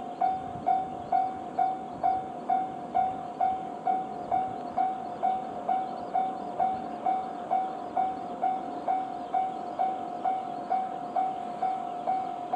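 Japanese railway level-crossing alarm ringing, an evenly repeated electronic ding at one pitch nearly three times a second, warning of an approaching train. Beneath it, the faint rumble of the approaching freight train.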